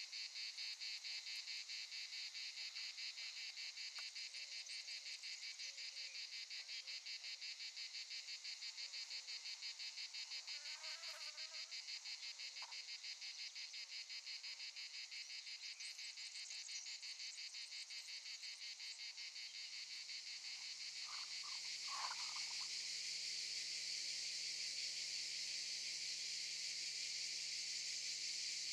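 A chorus of cicadas buzzing in a fast, even pulsing. About two-thirds of the way through, a low steady hum joins in and the buzz turns continuous. A few faint short chirps come and go.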